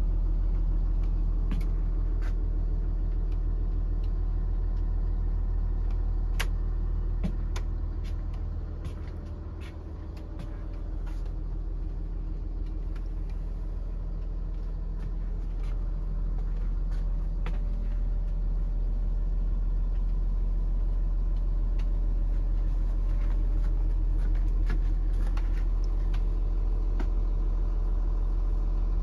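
Steady low engine idle heard from inside the body of a step-van tool truck, dipping briefly about a third of the way through, with a few scattered light clicks and knocks.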